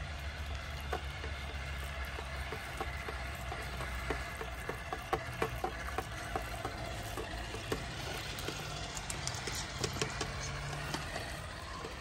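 Traxxas TRX-4 scale RC crawlers driving through a shallow rocky creek: small splashes and rapid clicks of tyres on wet stones over a steady low hum, busiest in the middle and latter part as the trucks come close.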